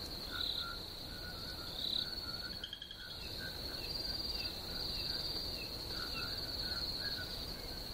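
Crickets chirping: a steady high trill with scattered shorter chirps at lower pitches.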